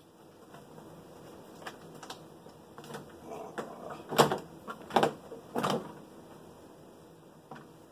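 Scattered clicks and knocks from hand work on a Jeep door's parts, with three louder knocks between about four and six seconds in.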